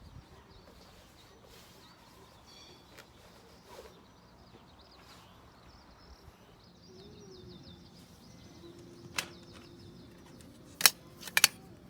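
Faint high chirping over a quiet background, then a sharp knock about nine seconds in and two more near the end.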